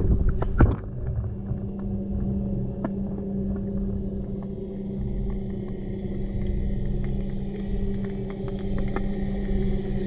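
Underwater recording: a steady low hum with a rumble beneath it and scattered faint clicks. A quick cluster of knocks and splashes comes in the first second as the camera settles on the bottom.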